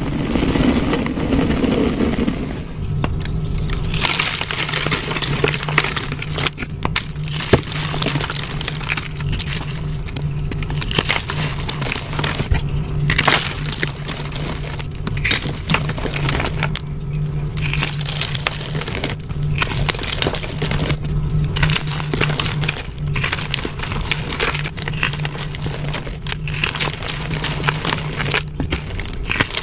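Hands crushing and crumbling reformed gym chalk blocks into powder: dry, gritty crunching and crumbling in repeated squeezes with brief pauses, starting about two seconds in. A low steady hum runs underneath.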